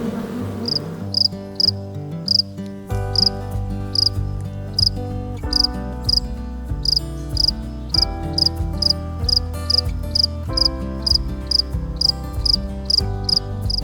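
Short, high, evenly repeated insect chirps, about two a second, over background music with slow held chords.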